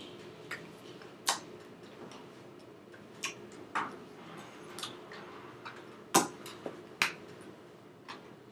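Hands of a person signing in sign language striking and brushing each other, giving a handful of sharp, irregular taps and slaps. A faint steady hum is underneath.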